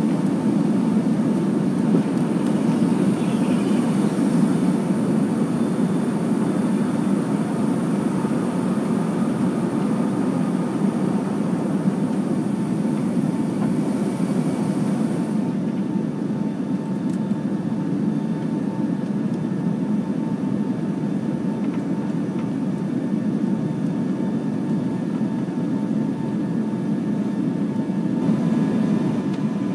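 Boeing 757-200 jet engines and airflow heard from inside the passenger cabin: a steady, low rushing noise with a faint steady tone above it. The higher hiss drops away about halfway through.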